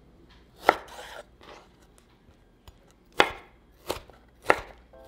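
Chef's knife dicing a tomato on a wooden cutting board: sharp knocks of the blade striking the board, one about a second in, then three in quick succession near the end.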